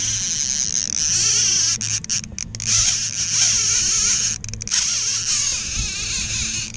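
Baitcasting fishing reel whirring loudly with a hooked fish on the line, starting abruptly, with a low steady hum underneath.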